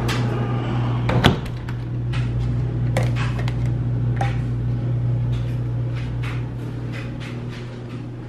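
A front-loading washing machine running with a steady low hum. About a second in a door shuts with a sharp thump, followed by a few lighter clicks, one of them a wall light switch being flipped.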